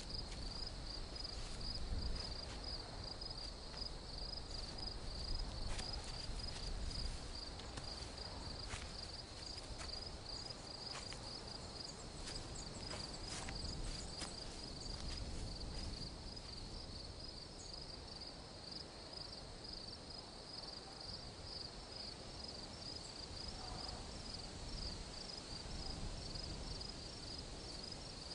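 Crickets chirping in a steady, rapid, high trill. A few faint clicks and rustles come through around the middle.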